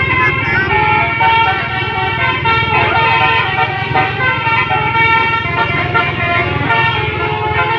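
Bus telolet horns, the multi-tone musical air horns fitted to buses, playing quick shifting melodies with several notes sounding at once over a low steady rumble.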